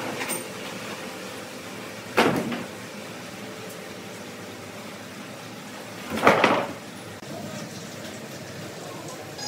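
A thin sawn wooden slab knocking and sliding against a heavy squared timber twice, two sharp wooden clatters about four seconds apart, over a steady hum of sawmill machinery.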